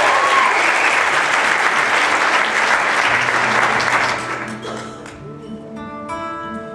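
Audience applause fades out over the first four seconds or so. About five seconds in, an acoustic guitar begins quietly picking sustained chords, the start of a song.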